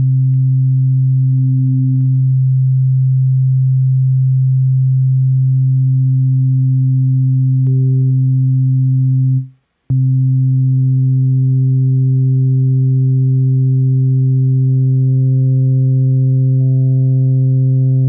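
Sustained synthesizer tone from Ableton's Operator FM synth: a low pure-sounding note with a second, fainter partial above it. It cuts out for a moment about halfway through and comes back. Higher overtones are added one by one in the second half as harmonics are drawn into the oscillator's waveform, making the note brighter.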